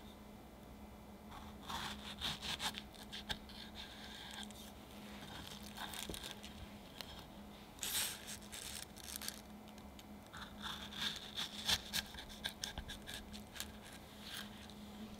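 Kitchen knife slicing through fresh strawberries and knocking on a wooden cutting board, in several short runs of quick cuts.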